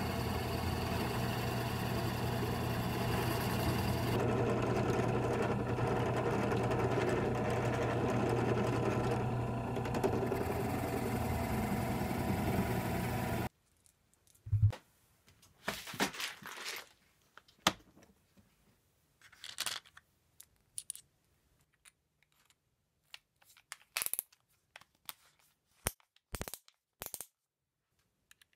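Drill press running with its bit boring into a wooden chair leg: a steady motor sound with a low hum that cuts off suddenly about halfway through. Scattered clicks and knocks follow as wooden and metal parts and a cordless drill are handled on the bench.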